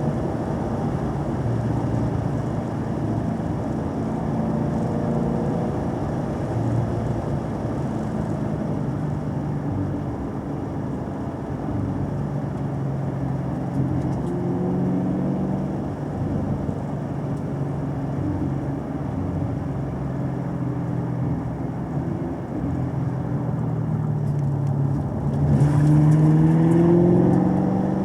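Car engine pulling along a winding road, its pitch rising and falling with the throttle and gear changes, with a louder rising rev near the end as it accelerates.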